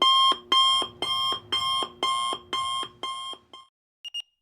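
Alarm clock ringing in repeated bursts about twice a second, growing fainter and stopping after about three and a half seconds. Near the end, short high beeps in quick pairs begin.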